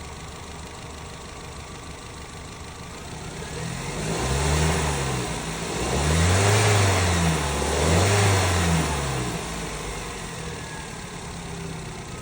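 Fiat Strada pickup's engine idling, then revved up three times in quick succession and settling back to idle.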